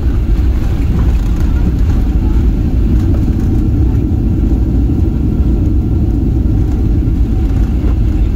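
Boeing 737-800 with CFM56 engines heard from inside the cabin during the landing roll: a loud, steady low rumble of engines, wheels and runway.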